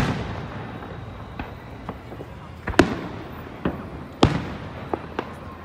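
Aerial fireworks shells bursting: a loud boom right at the start with a long rolling echo, then a string of smaller pops and two more sharp bangs about three and four seconds in.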